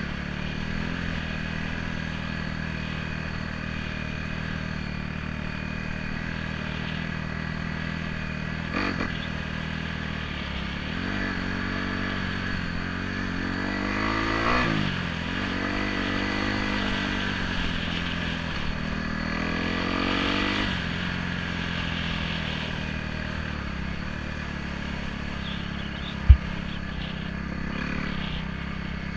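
Trail bike engine running at a steady pitch, then revving up and down in several rising and falling sweeps through the middle before settling back to a steady pitch. A single sharp low thump near the end.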